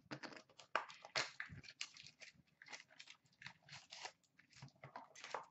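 Hands tearing open a hockey card box and its packaging: a quick run of faint crinkles, rips and rustles.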